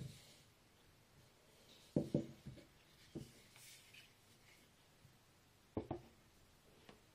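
Whetstones on wooden stands being handled and set down on a stack: a few dull wooden knocks, the loudest about two seconds in, another just after three seconds and a close pair near six seconds, with faint rubbing between.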